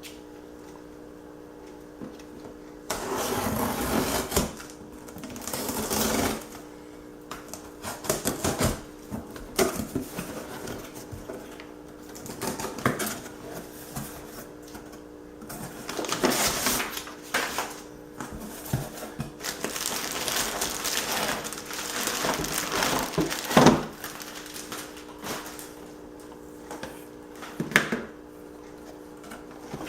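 A package being handled and opened: irregular bursts of rustling, tearing and scraping with sharp clicks and knocks, over a steady faint hum.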